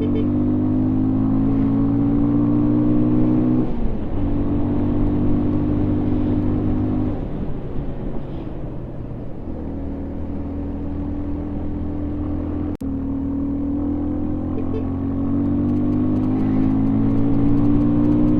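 Bajaj Avenger 160 BS6 motorcycle's single-cylinder engine through its stock exhaust, pulling under load, its revs climbing steadily in gear. The revs dip briefly twice, once a few seconds in and again around the middle, then climb again, and the sound cuts out for an instant about two-thirds of the way through.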